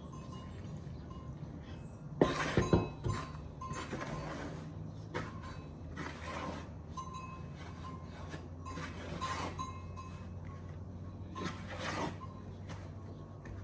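Kitchenware being handled: a quick cluster of loud clinks and knocks, then scattered lighter clinks, over a low steady hum.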